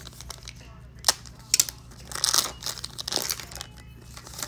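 Foil wrapper of a Donruss Elite football card pack crinkling and tearing as it is opened and the cards are pulled out. There are a few sharp crackles about a second in and a denser run of crinkling between two and three and a half seconds in.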